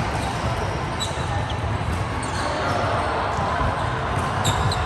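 Indoor volleyball game ambience in a sports hall: a steady murmur of the hall with irregular low thuds of players moving on the court and a couple of faint short shoe squeaks.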